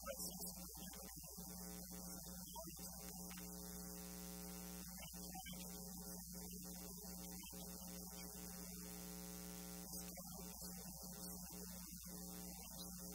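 Faint, steady electrical hum and buzz from the recording's audio system, with no speech.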